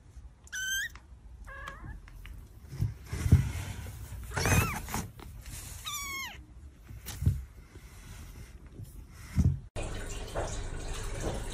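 Kittens mewing: about four short, high-pitched mews, several of them sliding down in pitch.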